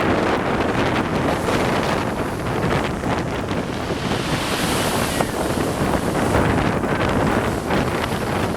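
Strong wind buffeting the microphone over surf breaking on the shore: a loud, unbroken rush, with a brighter hiss for about a second some four seconds in.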